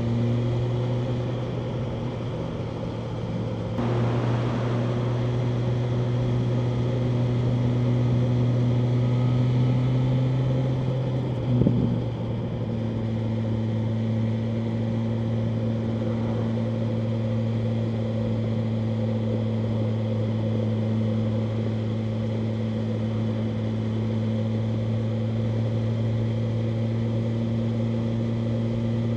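BMW M1000R Competition's inline-four engine running steadily under way. It gets louder about four seconds in, has a short break in its note about twelve seconds in, then holds steady again.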